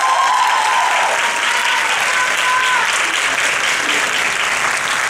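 Audience applauding in a hall at the close of a dance performance, with a long, high held cry from the crowd over the clapping for the first three seconds or so.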